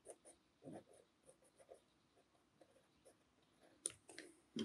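Faint scratching of a colored pencil shading on black paper in quick, short, repeated strokes, with a single sharp click about four seconds in.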